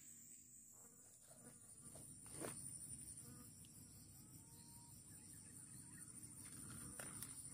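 Near silence in the forest: a faint, steady, high-pitched insect drone, with a soft click about two and a half seconds in and another near the end.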